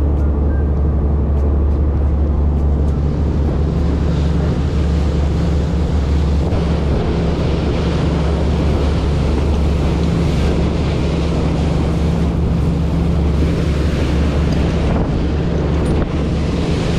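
Fishing boat under way: its engine hums steadily while water rushes along the hull and wake, with wind buffeting the microphone.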